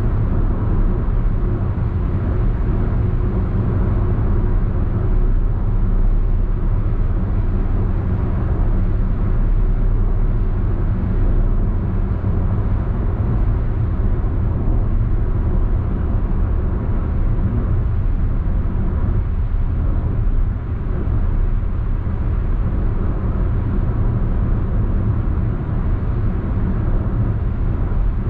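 Steady low rumble of road, tyre and engine noise heard inside a Perodua Alza MPV's cabin while cruising at highway speed, with a brief dip in level about twenty seconds in.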